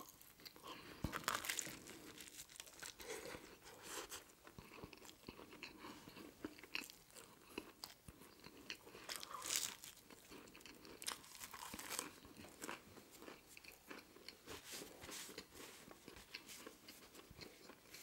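Close-miked eating of a sandwich: quiet biting and chewing with irregular crunches and wet mouth clicks, a few crunches louder than the rest.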